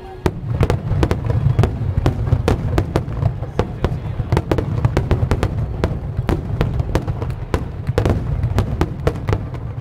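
Aerial fireworks bursting in rapid succession: a dense run of sharp bangs, several a second, over a continuous low rumble, starting abruptly just after the start.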